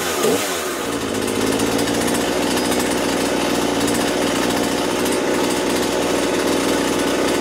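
Husqvarna 120 Mark II two-stroke chainsaw engine idling steadily on its freshly set idle (T) screw. Its speed dips and picks back up briefly near the start, then holds an even idle.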